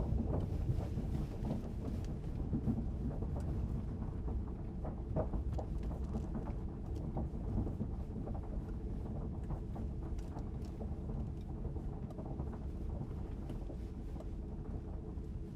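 Steady low rumble with a faint hum and a few light clicks, like the running noise heard inside a moving vehicle.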